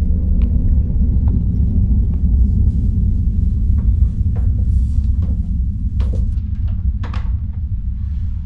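A loud, steady low rumbling drone, with scattered faint clicks and knocks over it and two sharper knocks about six and seven seconds in.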